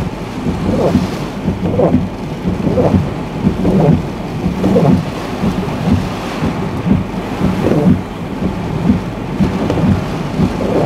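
Hurricane-force wind and driving rain from Hurricane Helene's eyewall, a loud steady rush with a deep rumble that keeps surging and easing.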